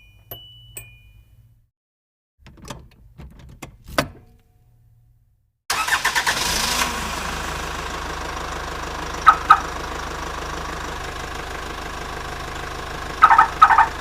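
A car dashboard warning chime dinging about twice a second stops about a second in. Clicks and rattles of a key in the ignition follow, then a short silence. About six seconds in, the starter cranks briefly and the engine catches and settles into a steady idle, with a few sharp clicks over it around nine and thirteen seconds in.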